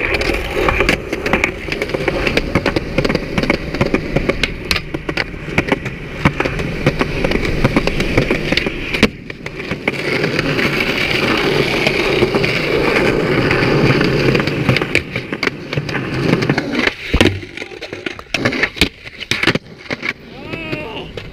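Skateboard wheels rolling over concrete, a steady rumble broken by frequent clacks and knocks. Near the end the rolling stops and only separate board pops and clacks are left.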